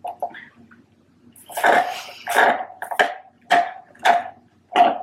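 A person slurping the last of a chocolate milkshake in about six short, noisy sucks, close to the mic.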